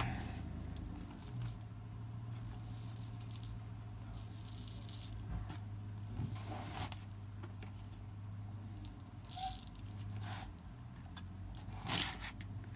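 Faint, scattered rustles and scrapes of hands working glitter and craft pieces on a sheet of paper, over a steady low hum.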